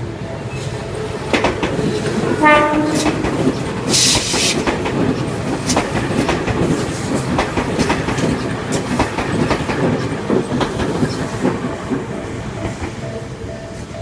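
A Tobu Spacia limited-express electric train passing close by, its wheels clicking steadily over the rail joints. It gives a short horn toot about 2½ seconds in, and a brief hiss follows about a second later. Level-crossing warning bells ring faintly at the start and again near the end.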